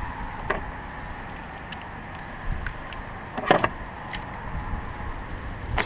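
A few short clicks and knocks, like tools or small parts being handled. The loudest is a clattering knock about three and a half seconds in, heard over steady outdoor background noise.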